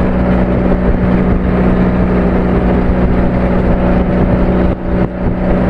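Engine of a motorized outrigger boat (bangka) running at a steady pitch while under way, with wind and water noise over it.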